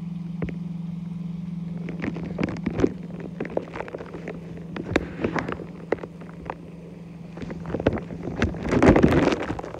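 Underwater sound in a pool: the steady low hum of a Bestway sand filter pump carried through the water, with scattered clicks and knocks of water and handling on the microphone, and a louder rush of water noise near the end.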